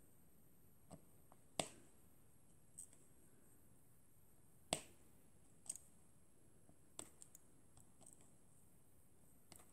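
Diamond painting drill pen picking up and pressing square resin drills onto the canvas: about ten small, sharp clicks at irregular intervals. The two loudest come about one and a half and nearly five seconds in.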